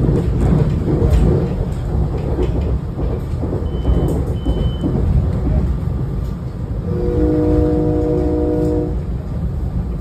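Rumble and rail noise heard inside the passenger car of a SEPTA Regional Rail electric multiple-unit train running at speed. About seven seconds in, a train horn sounds one steady chord for about two seconds.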